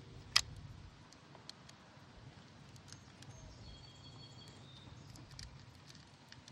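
One sharp click about half a second in, then faint scattered light ticks and clicks of small metal and plastic parts being handled, over a low steady hum.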